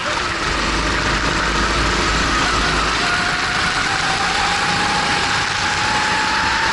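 Racing kart engine running hard under load, its note rising steadily from about three seconds in as the kart accelerates out of a corner, under heavy wind and spray noise on the onboard camera.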